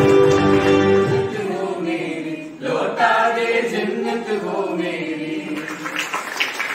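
Recorded music that cuts off about a second in, then a group of young people singing together into a hand microphone, their voices rising in together partway through. Clapping begins near the end.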